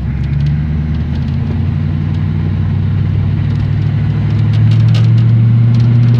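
1982 Chevy C10 pickup's engine running as the truck drives, heard from inside the cab with a steady low drone. The engine gets louder about four and a half seconds in.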